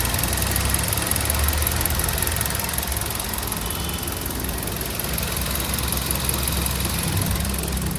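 Car engine idling steadily with a low, even rumble.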